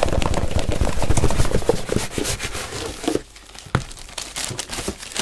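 Parcel packaging being torn open and crinkled by hand: a dense crackling rustle for about three seconds, then a few scattered crinkles and one sharp click.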